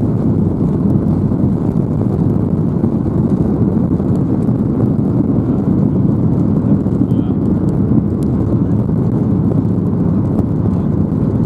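Steady low rumble in the cabin of a Boeing 737-800 just after landing, from its CFM56 engines and the aircraft rolling on the runway.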